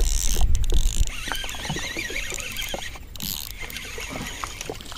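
Wind rumbling on the microphone for about the first second, then scattered light clicks and knocks with a brief splashy hiss as a small sunfish is brought in to the boat on rod and reel.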